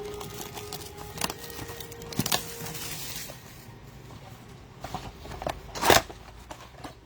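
Trading card packs and cards being handled: wrappers crinkling and tearing and cards flicked, with scattered sharp crackles and a louder crinkle about six seconds in.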